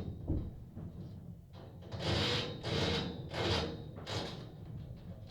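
Scaffolding work heard from inside a house: a run of irregular knocks and scraping noises, busiest about two to four seconds in.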